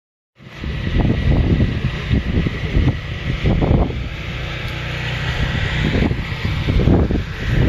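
Wind buffeting the camera microphone: a loud, gusting rumble that cuts in abruptly about half a second in and rises and falls irregularly.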